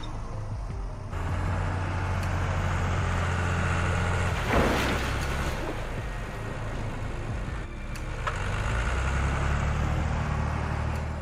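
Heavy machine's large diesel engine running steadily with a deep hum. A short, loud burst of noise comes about four and a half seconds in.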